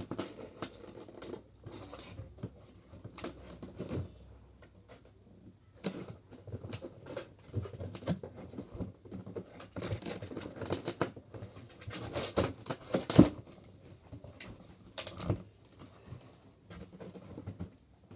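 A cardboard Nerf blaster box being worked open by hand: irregular scraping, rustling and small knocks of cardboard, with one sharper knock about two-thirds of the way through.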